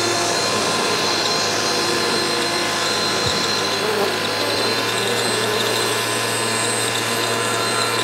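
Handheld leaf blower running steadily, a high whine over rushing air, as it blows a swarm of honeybees off a man's body.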